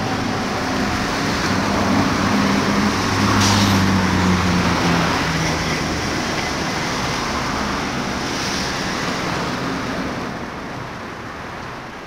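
Street traffic noise: a steady wash of passing vehicles with the low hum of an engine, loudest a few seconds in and fading gradually toward the end.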